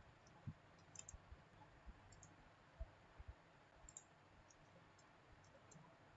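Faint computer mouse clicks and keyboard key presses, a few scattered light clicks against near silence, with a quick run of keystrokes near the end.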